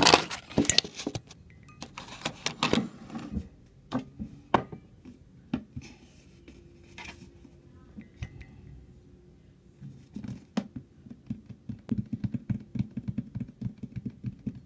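Handling clatter: sharp knocks and clicks as a plastic jug and other things are picked up and moved about, loudest in the first few seconds. Near the end comes a quick run of soft thumps as the jug is upended over a glass container.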